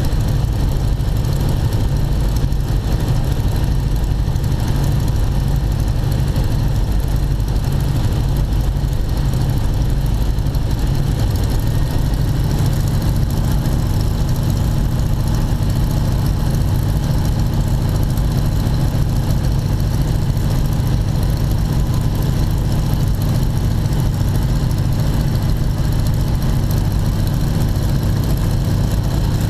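Ford Tri-Motor's three radial engines droning steadily in flight, heard from inside the cockpit, with a slight change in tone about twelve seconds in as the plane descends toward the runway.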